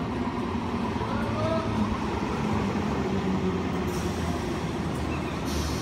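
Old electric multiple unit local train running into the station: a steady rumble of wheels on rail with a motor hum. Two brief, sharper noises come near the end as the carriages pass close by.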